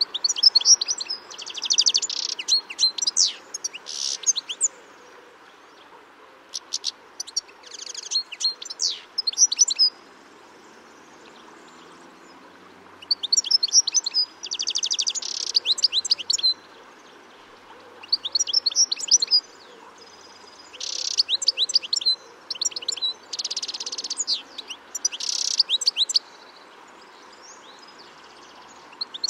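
European goldfinches calling and twittering, in bouts of rapid high notes and trills a few seconds long with short pauses between.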